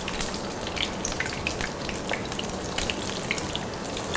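Batter-coated vegetarian chicken cutlets shallow-frying in hot oil in a pan: a steady sizzle dotted with many small crackles and pops.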